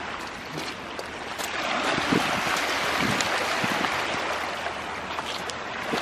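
Waves washing onto a pebbly shore, swelling up through the middle and easing off near the end, with a few light crunches of footsteps on the gravel.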